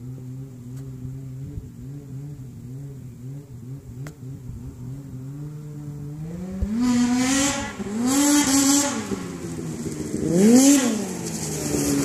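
Arctic Cat ProCross F800 snowmobile's two-stroke twin through a GGB aftermarket exhaust can, running steadily at a distance at first. From about six and a half seconds in it grows louder as it approaches, revving up and back down several times, the sharpest rev about ten and a half seconds in.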